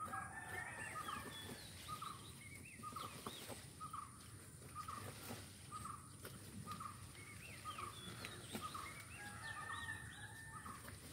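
Birds calling: one short call repeated steadily about once a second, with scattered higher chirps from other birds.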